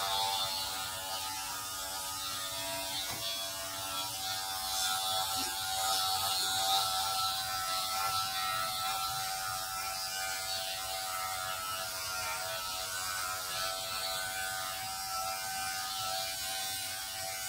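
Corded electric hair clippers running with a steady buzz as they are passed over a man's scalp to shave his head bald.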